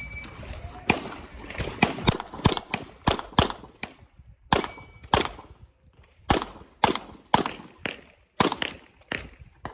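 A string of handgun shots, one about every half second, with a short pause around four seconds in.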